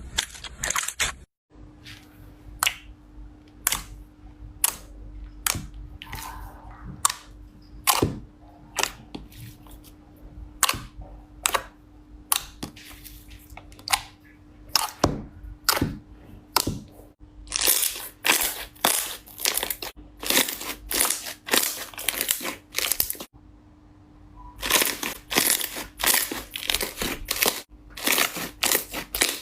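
Clear slime being pressed and squeezed by hand, giving sharp wet clicks and pops, one or two a second at first, then fast crackling runs of clicks in the second half.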